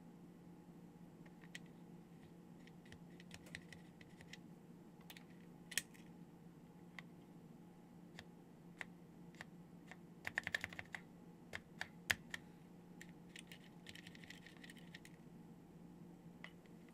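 Keys of an Epson HC-20's SMK linear mechanical keyboard being pressed: scattered single keystrokes, with a quick flurry of presses about ten seconds in and another a few seconds later.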